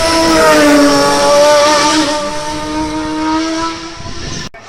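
Hill-climb race car engine passing close by at high revs, its note dipping slightly as it goes past and then fading. The sound cuts off suddenly near the end.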